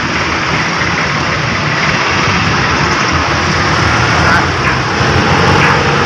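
Steady engine drone with a constant hiss, unchanging in level.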